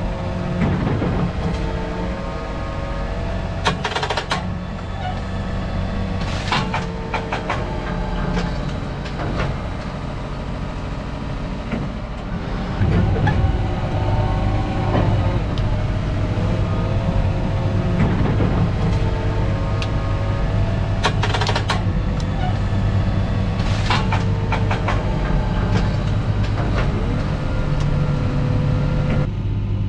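Fendt 716 Vario tractor running steadily while working with a Kotte Garant slurry tanker, with several sharp knocks and rattles. About 13 seconds in, the engine gets louder and its hum deepens.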